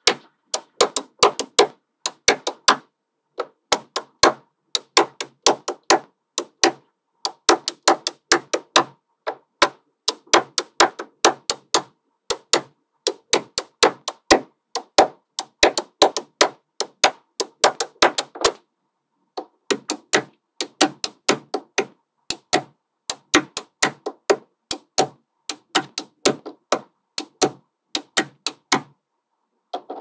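Small magnetic balls clicking together, many sharp clicks in quick runs of several a second, broken by short pauses.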